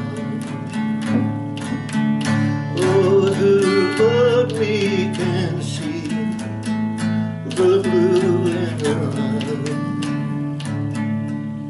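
Steel-string acoustic guitar strummed in a steady rhythm, with a man's voice singing a wavering melody over it in two phrases.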